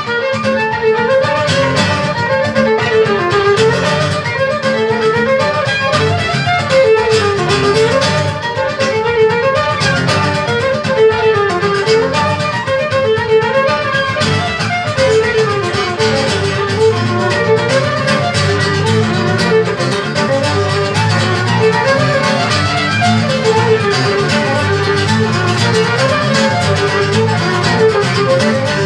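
Violin and guitar duet played live: the violin carries a busy melody of quick notes over the guitar's accompaniment.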